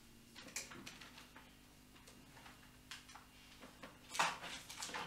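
Faint scattered clicks and ticks as a 2000 W step-down voltage converter is switched on and its display comes up, with a louder cluster of clicks about four seconds in.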